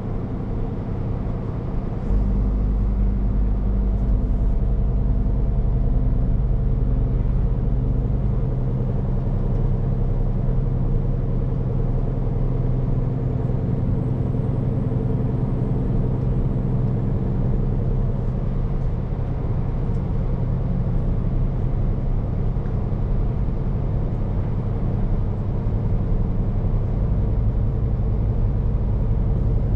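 Scania P410 truck's diesel engine running steadily while driving, heard from inside the cab along with a low road rumble. The engine gets louder about two seconds in and eases off again about eight seconds in.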